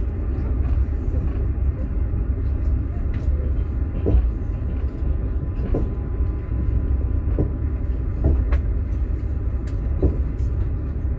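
Steady low rumble of a moving passenger train heard from inside a sleeper carriage, with the clack of the wheels over rail joints every second or two.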